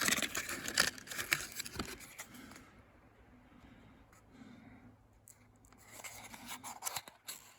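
Handling noise: light clicks and rustling as small parts are picked up and moved, busiest in the first two seconds, then a few soft clicks near the end.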